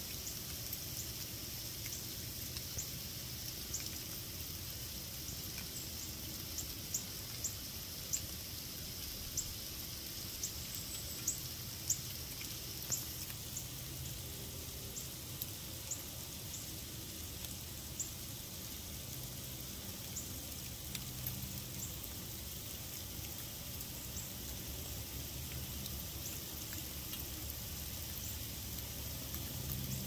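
Outdoor ambience: a steady hiss with scattered short, high-pitched ticks, thickest about a third of the way in, over a faint low rumble.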